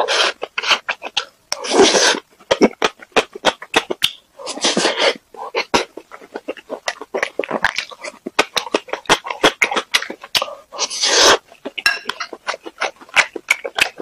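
Close-miked wet chewing and lip smacking on a mouthful of rice: rapid clicks with a few longer, louder noisy bursts of slurping and breathing through the mouth.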